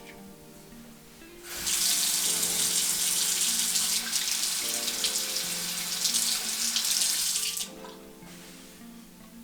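Water tap running into a sink for about six seconds, turned on about a second and a half in and shut off abruptly near the end, with background music throughout.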